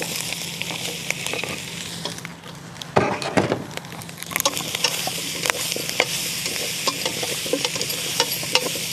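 Bacon, onion and garlic sizzling in a cauldron over a crackling wood fire, with a brief clatter of chopped potatoes landing in the pot about three seconds in, followed by a spoon stirring.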